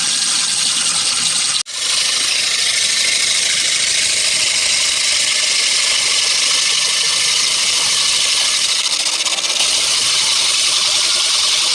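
Concrete core drilling machine running steadily as its 6-inch core bit cuts through a concrete wall, with a brief break just under two seconds in.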